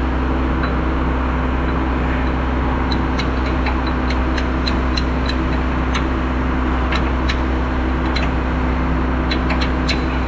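A truck's engine idling steadily with a constant low hum. Sharp, light clicks are scattered irregularly over it.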